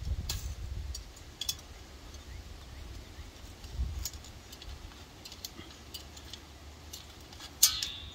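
Barbed wire and a steel splicing tool clinking as the wire is wrapped by hand into a splice: scattered light metallic ticks, with one louder, briefly ringing clink near the end.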